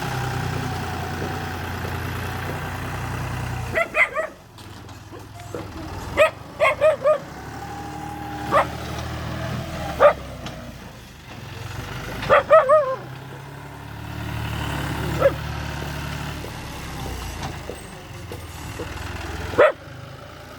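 A bulldozer's diesel engine running steadily, its level rising and falling, while a dog barks in short runs of one to four barks throughout.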